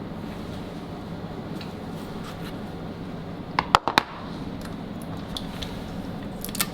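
Steady low room hum, with two or three sharp clicks of utensils on tableware a little under four seconds in while a dish is being plated.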